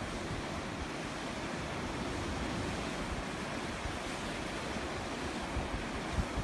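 Sea waves washing on the shore in a steady rush, with wind buffeting the microphone in low rumbles near the end.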